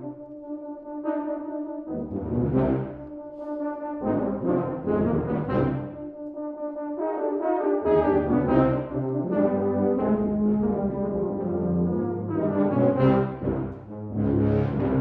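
Tuba and euphonium quartet playing a rhythmic, accented passage. The low bass line drops out for stretches in the first half, then the full ensemble plays together from about halfway.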